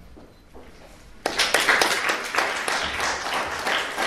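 Audience applauding, breaking out suddenly about a second in after a short quiet pause.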